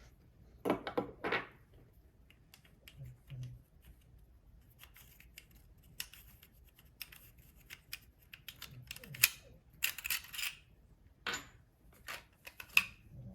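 Irregular clicks, taps and short scrapes from a toy lightsaber hilt being handled, its blade and emitter ring being taken off to expose the crystal chamber, with a few louder clatters about a second in and around nine to ten seconds in.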